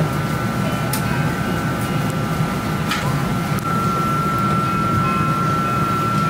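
Steady cabin noise of a parked airliner, heard inside the cabin: the air-conditioning runs as a low rushing hum with a steady high whine that grows stronger about halfway through, and there are a couple of faint clicks.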